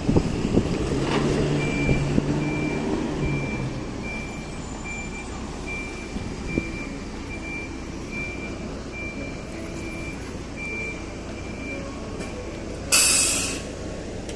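Reversing beeper of a large vehicle beeping steadily at one high pitch about twice a second, over the vehicle's running engine. About 13 seconds in, a short loud hiss of air brakes.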